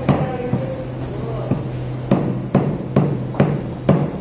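A large knife chopping a rohu fish fillet into chunks on a wooden chopping block: about eight sharp chops, coming roughly every half second in the second half. A steady low hum runs underneath.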